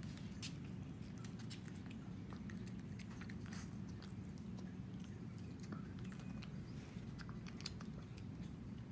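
Shih Tzu chewing rice and sardines off a plate, with many small scattered clicks and ticks from its mouth and teeth, over a steady low hum.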